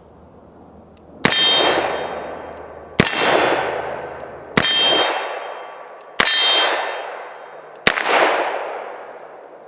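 .45 ACP revolver firing five shots about a second and a half apart, each shot followed by a ringing clang that dies away over about a second and a half, as from struck steel.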